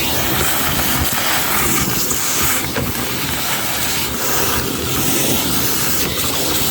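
Shop-Vac wet/dry vacuum running steadily, its loud airy hiss swelling and fading every second or so as the nozzle moves.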